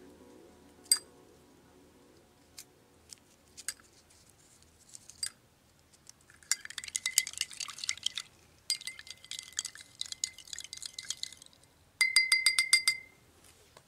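Metal spoon stirring in a small drinking glass, clinking and ringing against the glass in quick runs, with a few single taps before the stirring starts. Near the end comes a fast, even run of clinks.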